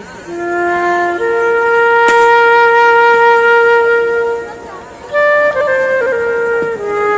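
Woodwind instrument playing a slow melody of long held notes as background music. A single note is held for about three seconds, a brief pause follows, then a few shorter notes with small slides between them.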